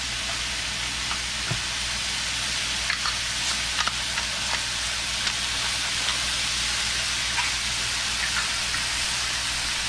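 Sliced white mushrooms and chopped garlic sautéing in oil in a frying pan: a steady sizzle with scattered small pops.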